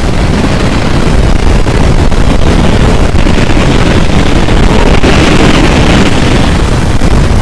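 Strong wind roaring and buffeting the microphone, a loud continuous rumble that swells a little around the middle, in the winds of a tornado.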